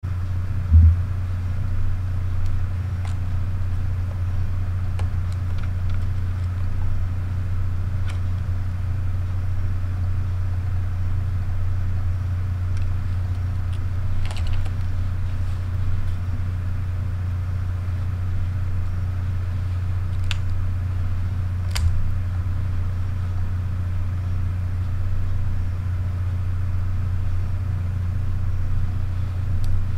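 A steady low hum, with a thump about a second in and a few light clicks and taps as the cameras are handled.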